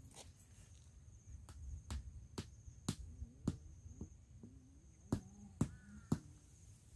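Footsteps on dry dirt, short sharp steps about two a second in two runs, with a thin steady high insect drone behind them.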